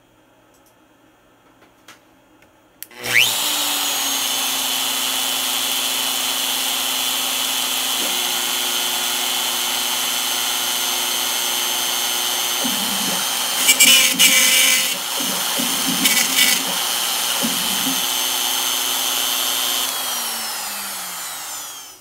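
CNC router spindle spinning up about three seconds in and running with a steady high whine. It plunges into MDF to cut a small round pocket, with a few brief louder cutting bursts past the middle, then winds down with a falling pitch near the end.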